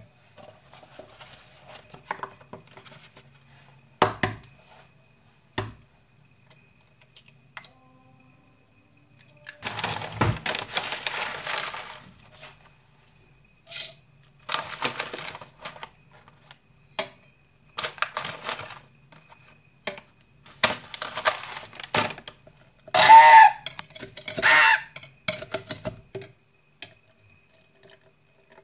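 Kitchen food preparation: two sharp knocks as an egg is cracked on the rim of a plastic measuring jug, then several rustling, rattling bursts as rolled oats are added, the loudest near the end.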